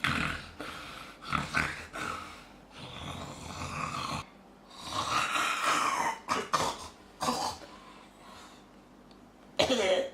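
A man snoring in loud, irregular bursts of uneven length, a snore likened to a whale's. About halfway through, one long drawn-out note rises and falls in pitch, and a loud burst comes near the end.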